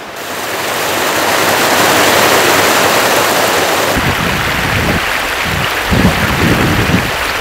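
Steady rushing hiss of river water pouring over a low weir. From about four seconds in, low, uneven gusts of wind buffet the microphone.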